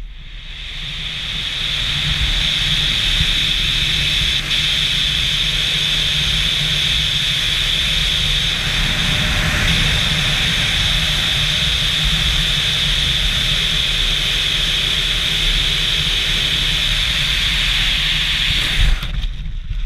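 Wind rushing hard over a helmet-mounted camera's microphone during a BASE jump's freefall flight: a loud, steady rush that builds over the first couple of seconds after the exit from the cliff, then stops abruptly about a second before the end.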